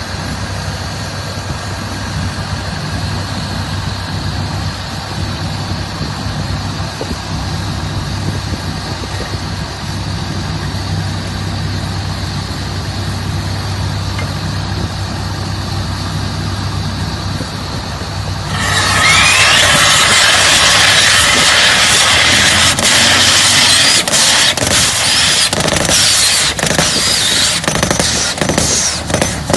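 Yonda YDR30A drill rig's engine running steadily, then about two-thirds of the way through a much louder hissing, rattling noise suddenly takes over as the rig starts working, with scattered knocks near the end.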